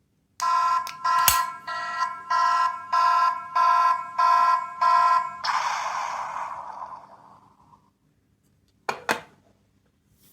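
A small sound-making capsule toy playing a recorded alarm-like tone that pulses about eight times, roughly one and a half a second, then fades out in a hissing tail. Two sharp clicks follow near the end.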